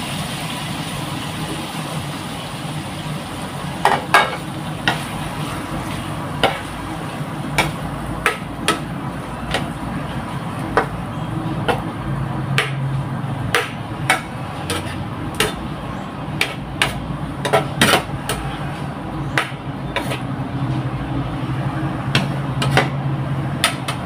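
A metal ladle stirring shrimp in a nonstick frying pan, clinking and knocking against the pan in irregular sharp strikes that begin about four seconds in and come faster in the second half, over a steady low hum.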